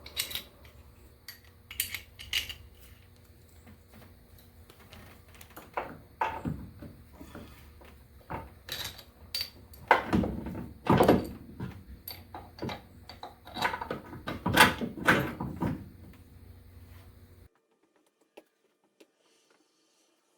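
Metal tools and steering parts clinking and knocking at irregular intervals while a steering stabilizer is fitted, the loudest knocks about ten to fifteen seconds in. The sound drops to near silence about seventeen seconds in.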